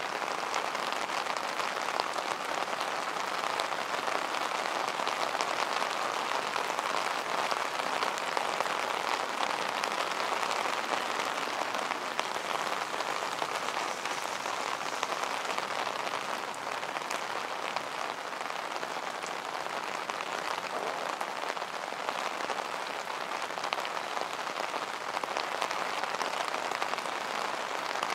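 Steady heavy rain falling on wet pavement: an even hiss with many fine drop ticks.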